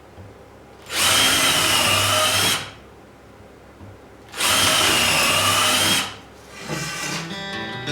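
Electric drill running in two bursts of about a second and a half each, with a steady motor whine.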